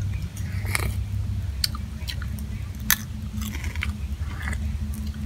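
Biting and chewing grilled small crabs: a scatter of crunches and shell cracks, with one sharper crack about three seconds in, over a steady low hum.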